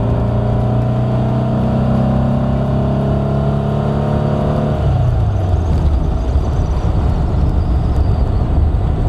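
1964 VW Beetle's air-cooled flat-four engine pulling steadily, heard from inside the cabin, its note climbing slightly. About five seconds in the revs drop off and it settles into a low rumble, sounding solid with a good pulse.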